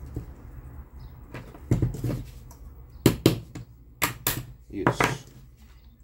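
Parts of a Mallory fan motor being fitted together by hand: several sharp knocks and clicks from about two seconds in, as a motor piece is pushed into place.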